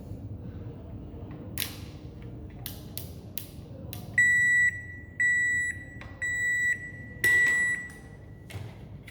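A few sharp clicks, then four evenly spaced electronic beeps, each about half a second long and about one a second apart, from a washing machine's electronic parts under test.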